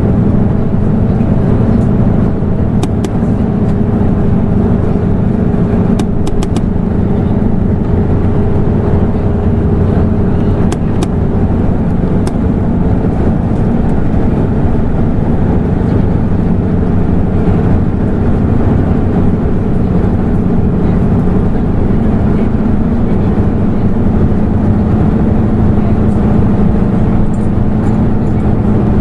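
Hino LNG-HU8JMGP city bus, a Blue Ribbon City hybrid, running on the road with a steady engine drone. A few faint clicks sound about 3, 6 and 11 seconds in.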